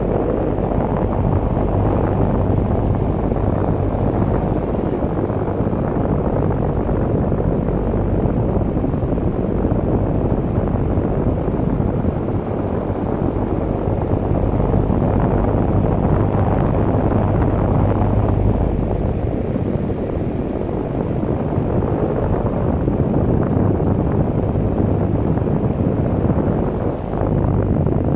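Loud, steady rumbling noise with a faint low hum underneath, even throughout, with no alarm tones or speech.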